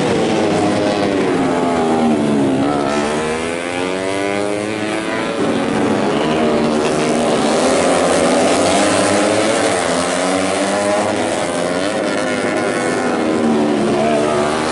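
Several tuned four-stroke underbone racing motorcycles, up to 150cc, running hard at high revs, several engines heard at once, their pitch falling and rising again and again as they brake, shift and accelerate.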